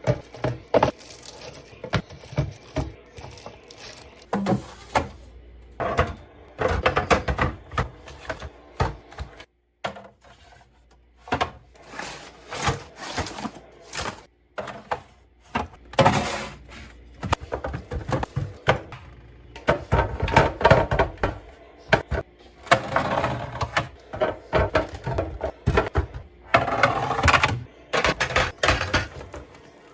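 A refrigerator being restocked by hand: many irregular knocks, clacks and clatters as bottles, cans and containers are set down on the shelves and in the door, with several longer stretches of dense handling clatter.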